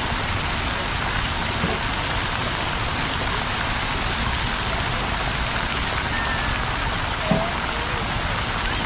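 Steady rush of water from a plaza fountain, falling and splashing without a break, with a faint voice or two in the distance near the end.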